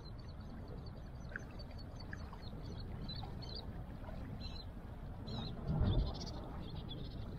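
Small birds calling with many short, high chirps, scattered and irregular, over a steady low rush. A brief low thump comes about six seconds in.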